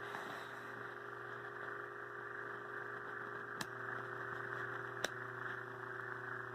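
Electric box fan motor, out of its housing and plugged in to test it, running with a steady electrical hum that shows it is working. Two sharp clicks come about three and a half and five seconds in.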